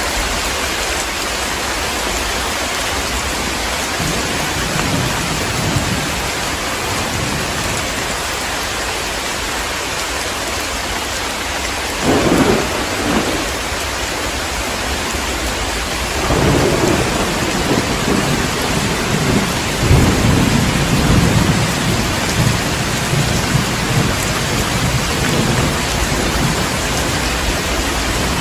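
Heavy rain falling steadily in a thunderstorm. Thunder breaks in about twelve seconds in with a short rumble, then a longer rolling rumble starts a few seconds later and swells before fading out.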